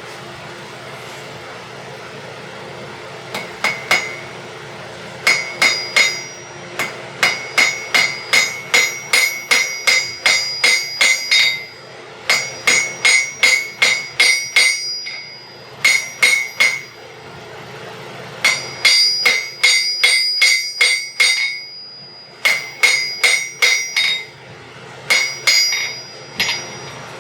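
Blacksmith's hammer striking hot iron on an anvil in runs of quick blows, about two or three a second, each with a bright ringing note, with short pauses between runs. The smith is forging a nail, squaring up its shank.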